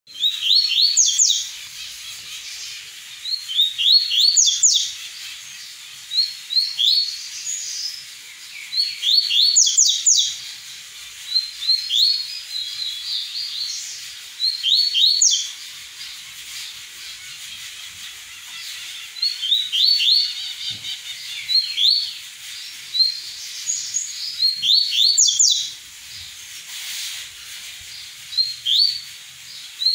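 Double-collared seedeater (coleiro, papa-capim) singing its 'tui-tui' song: phrases of quick, high, sweeping notes repeated every two to four seconds with short pauses between.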